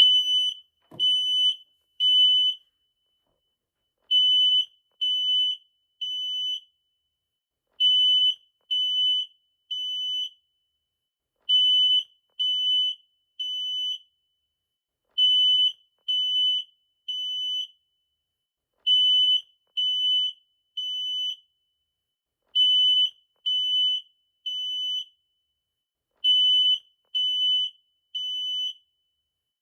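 Smoke detector alarm sounding its high-pitched beep in repeating groups of three, each group of three half-second beeps followed by a pause of about a second and a half: the temporal-three pattern that signals fire and evacuation.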